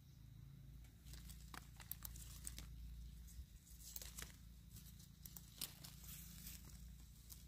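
Faint rustling and crinkling, with scattered small crackles and snaps over a low steady hum.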